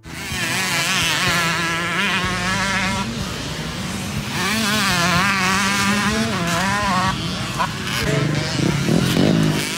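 Several motocross dirt bikes racing, their engines revving up and easing off in turn so the pitch keeps rising and falling.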